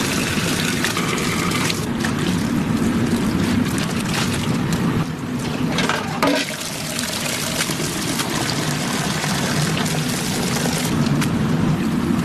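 Water running from a kitchen tap and splashing and trickling in a sink, steady throughout.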